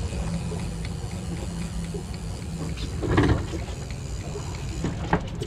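Boat engine idling: a steady low rumble and hum, with one brief louder sound about three seconds in.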